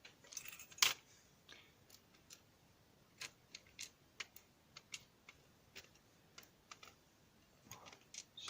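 Small sharp metallic clicks and taps at an irregular pace, from a lock's pins and small parts being handled while the core is taken apart. The loudest click comes about a second in.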